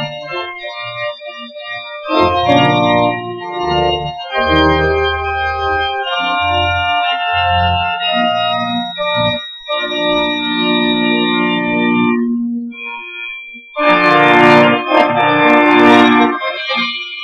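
Church organ playing held chords, with deep pedal bass notes entering about two seconds in. After a brief break near the end, a fuller, louder passage begins.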